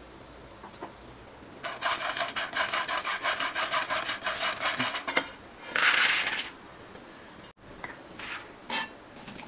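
Quick, rhythmic rubbing or scraping strokes, about five a second for some three seconds, then one longer scrape about six seconds in and a few short scrapes near the end.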